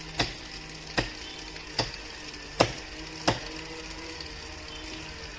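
Five sharp chopping blows into wood, evenly spaced about one every 0.8 seconds, with a faint steady hum underneath.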